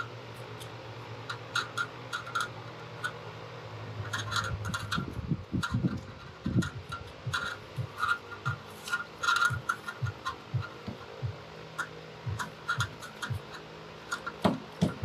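Hands working wires, insulation and a small plastic connector inside a PTAC unit's sheet-metal cabinet: scattered small clicks and rubbing. A low hum runs through the first few seconds, a few heavier low thuds come midway, and repeated soft low thumps follow.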